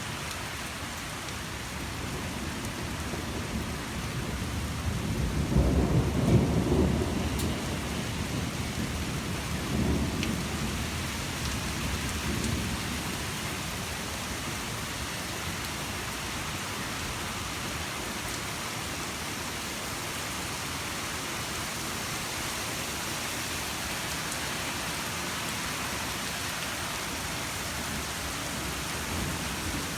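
Steady rain falling, with a roll of thunder that builds about four seconds in, peaks around six seconds, and rumbles on in weaker waves until about thirteen seconds in.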